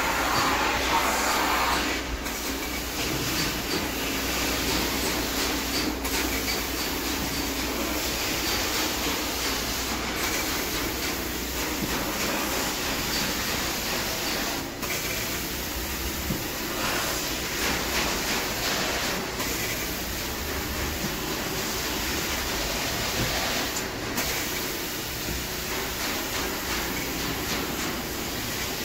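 Carpet extraction machine running steadily: a loud vacuum hiss over a low hum, with short dips every four or five seconds.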